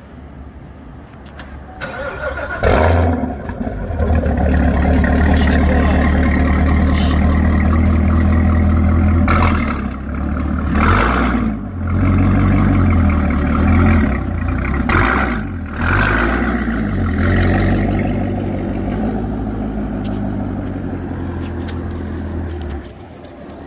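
Corvette C7 Z06's supercharged 6.2-litre V8 through an Akrapovic exhaust. About two and a half seconds in it flares loudly as it starts, then idles deep and loud. It is blipped several times between about 9 and 16 seconds in and settles to a lower, steady note as the car pulls away near the end.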